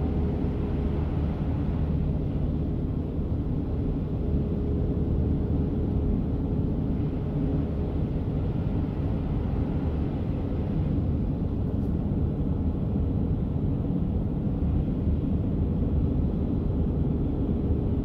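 Steady low road rumble of a car driving on a snow-covered highway, heard inside the cabin: engine and tyre noise with a faint steady hum.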